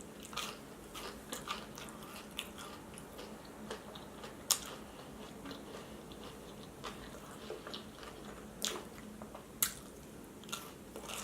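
Close-up eating sounds: a person biting and chewing breaded vegan chicken nuggets and tater tots, with soft crunches, moist mouth clicks and a few sharper crackles.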